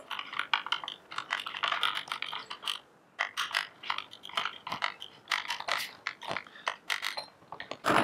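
Screwdriver turning a button-head cap screw down into a plastic battery-bracket cover, making quick irregular small clicks and scrapes.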